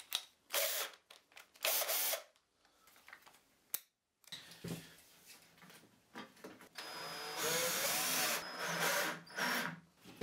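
Makita cordless drill running in two short bursts, then, after a cut, a longer run of a few seconds whose motor pitch rises and falls with the trigger.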